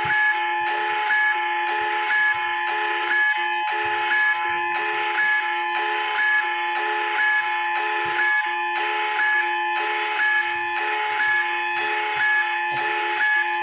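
Emergency-alert-style alarm: several steady tones held together, with a second alarm beeping about twice a second over them.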